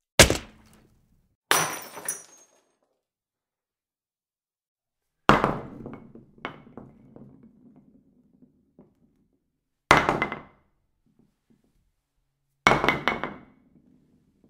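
A series of five separate impact sound effects, each a sharp hit followed by a short clattering, breaking tail. The third is followed by scattered small pieces clinking and settling for a few seconds.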